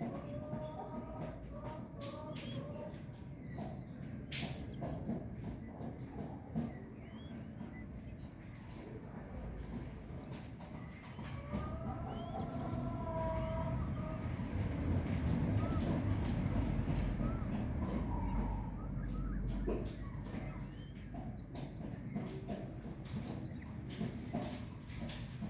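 Small birds chirping: many short, high chirps in quick succession, mixed with some lower-pitched calls. Under them runs a low rumble that swells in the middle and then eases off.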